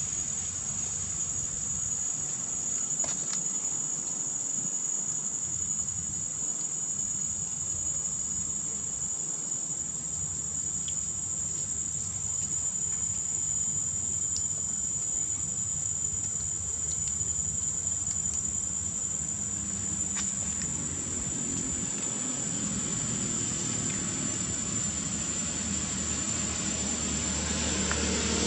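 Steady high-pitched drone of insects, unbroken. In the last several seconds an engine comes in low and grows louder as a motor vehicle approaches.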